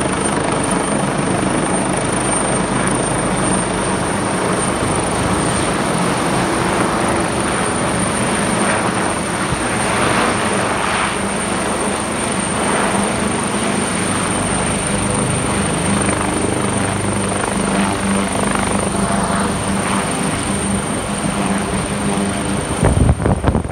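Air ambulance helicopter's rotor and turbine noise, loud and steady with a thin high whine, as it descends and settles onto a rooftop helipad. Near the end, wind rumbles on the microphone.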